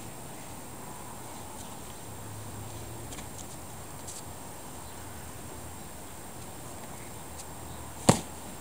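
Steady outdoor background hiss with a few faint clicks. Near the end comes one sharp, loud knock close to the microphone as luggage is handled.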